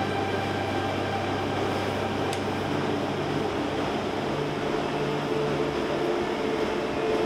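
Steady rushing noise of a running gas forge, with soft background music holding long low notes over it.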